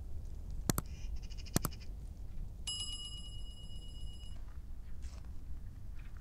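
Subscribe-button overlay sound effects: two sharp mouse clicks about a second apart, then a steady electronic bell ding lasting under two seconds, over a low background rumble.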